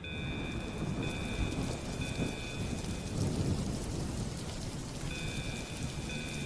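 Heavy rain falling with a low rumble of thunder, starting suddenly. Over it, an electronic beep of a few stacked pitches repeats in roughly one-second pulses, drops out for about two seconds midway, then comes back.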